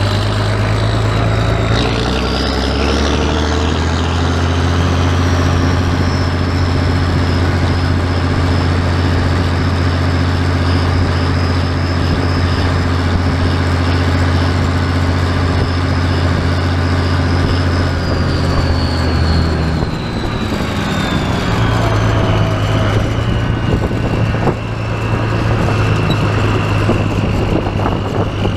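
Oliver farm tractor's engine running at road speed under a steady throttle, with a high whine above it. The engine steps up in pitch about two seconds in, then drops to a lower, steady pitch about two-thirds of the way through as the tractor slows, and the whine falls with it.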